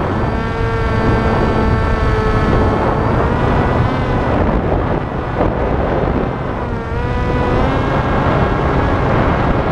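Volantex Ranger RC plane's electric motor and propeller whining, its pitch shifting as the throttle changes, heard from the onboard camera over heavy wind rush on the microphone.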